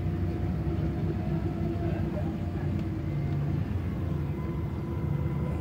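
Tour boat's engine running steadily: a low drone with a constant hum layered over it.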